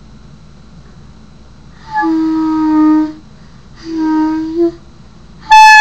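Clarinet played in separate held notes: two mid-range notes of about a second each, then a louder, higher, brighter note starting near the end.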